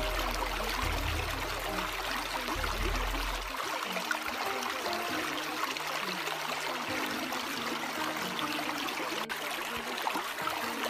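Steady hiss of running water over soft, held music notes; a deep bass note underneath stops about three and a half seconds in.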